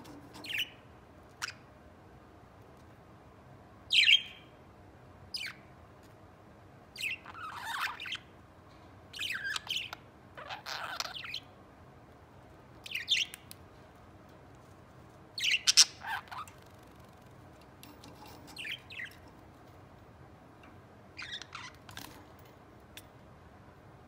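Pet budgerigars chirping and chattering in short, irregular calls with pauses between them, the loudest about four seconds in and again around fifteen seconds, with longer runs of chatter in between.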